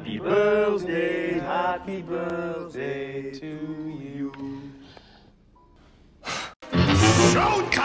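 Voices singing a short, chant-like melody for about four seconds. After a pause, a quick sharp breath in and then a loud, noisy blow as birthday candles are blown out.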